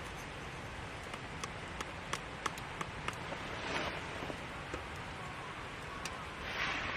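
Campfire crackling: sparse sharp pops over a steady hiss, with two brief swells of rushing noise about halfway through and near the end.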